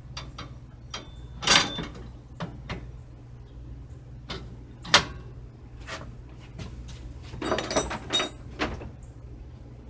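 Metal parts being handled as an 80cc engine's clutch and chain sprocket are test-fitted to a mini bike frame: scattered clanks and knocks, a loud one about a second and a half in, a sharp one about five seconds in, and a run of clinks near the end, over a steady low hum.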